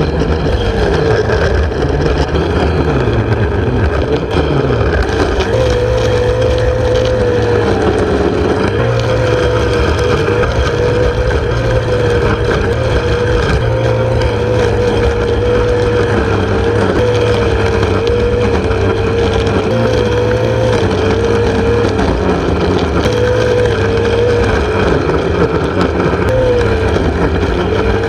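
Corded electric rotary lawnmower running while cutting grass: a steady motor hum with a whine that wobbles slightly in pitch.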